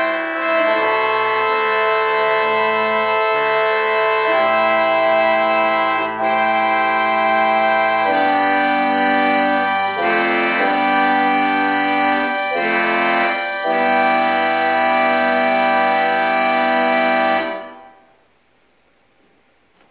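Church organ played in sustained, full chords that change every second or two, ending on a held final chord that is released abruptly a couple of seconds before the end.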